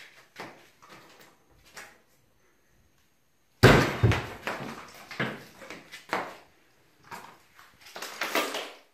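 A sudden loud bang a little over a third of the way in, then a run of knocks, scrapes and rustles as a bamboo back-basket and other household containers are shifted around on a concrete floor. Before the bang there are only a few faint clicks.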